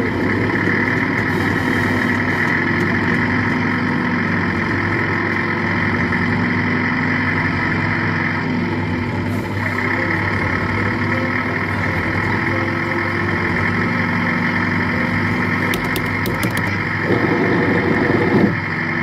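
Amutec red tractor kiddie ride running, giving a steady engine-like drone with a held hum. The drone grows a little louder and rougher near the end.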